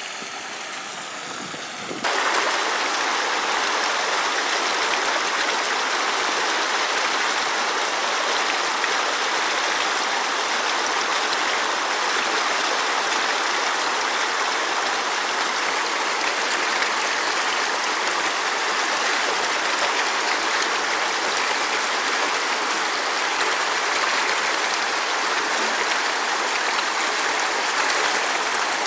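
Creek water rushing steadily over a rock shelf, louder from about two seconds in.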